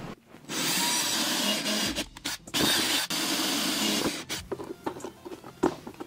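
Cordless drill boring holes through the plastic wall of a hard case. It runs for about a second and a half, stops, then runs twice more, briefly and then for about a second; light clicks and knocks follow near the end.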